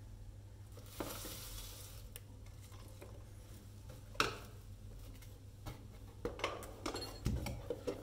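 Unboxing handling noises from a cardboard box and the wooden toy inside it: a scraping slide about a second in, a sharp knock about four seconds in, then a run of clicks and a dull thump near the end.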